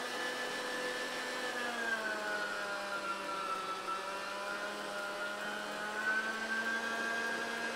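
Electric meat grinder running as it minces beef through a coarse plate: a steady motor whine that dips in pitch about two seconds in, while the beef goes through, and picks up again about six seconds in.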